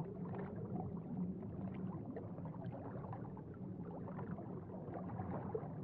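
Faint underwater ambience: a steady low rumble with continuous bubbling and gurgling.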